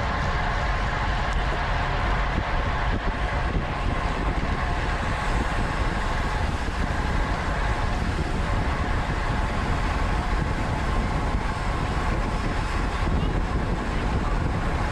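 Wind rushing over the microphone of a camera on a racing bicycle ridden at speed, a steady rumbling roar, with the hum of tyres and drivetrain under it.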